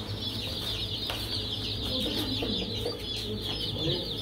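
A flock of baby chicks peeping continuously: a dense chorus of short, high cheeps that slide downward in pitch and overlap without a break.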